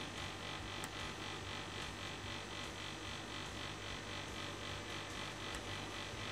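Faint steady electrical hum and hiss of the recording setup, with a couple of tiny clicks.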